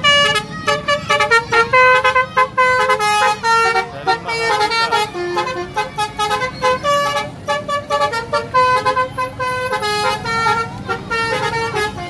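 Basuri multi-tone telolet horn on a tour bus playing a fast tune of short notes that step up and down in pitch, over the low running of the bus's engine.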